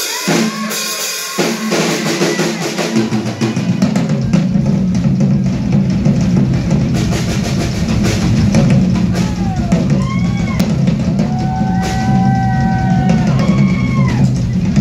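A rock drum kit played live and fast, with dense snare and tom strokes; the bass drum joins about four seconds in. In the second half, voices call out over the drumming.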